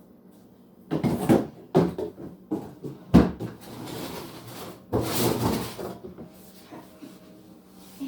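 Knocks, bumps and rustling of things being handled at a refrigerator, with a heavy thump about three seconds in and a longer rustle a couple of seconds later.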